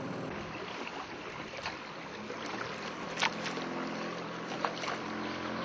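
Small boat under way on a channel: steady low motor hum over water and wind noise, with two sharp knocks about three and four and a half seconds in.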